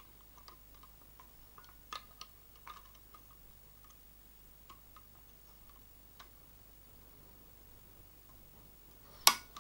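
Faint scattered clicks of multi-grip pliers pressing a shock's ball end onto a ball stud, then one sharp loud snap near the end as the ball end clicks home on the stud.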